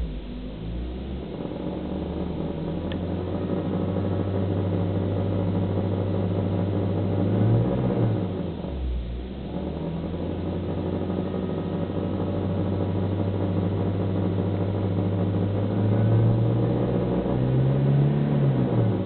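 Daihatsu Copen's engine running with an abnormal noise, revs climbing and dropping back twice. The noise sounds harsher through the microphone than it does in person.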